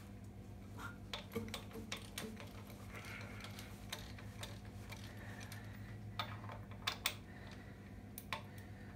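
Scattered metallic clicks and clinks of hand tools working on bolts, irregular and spaced out, over a steady low hum.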